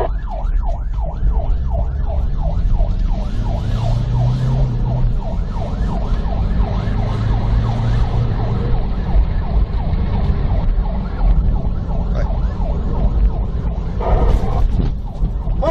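Police siren in a fast yelp, about three falling sweeps a second, heard from inside a car in pursuit over the car's running engine. The engine swells twice and the yelping fades out near the end.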